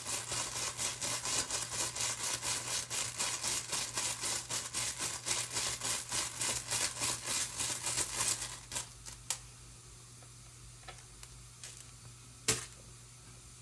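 Rune tiles shaken in a cloth pouch in quick, even strokes, about five or six rattles a second, for roughly eight seconds. The rattling is followed by a few scattered clicks of the tiles, one louder near the end.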